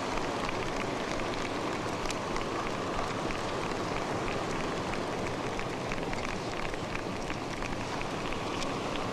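Steady rushing noise with scattered small crackles and ticks throughout, a rain-like ambience.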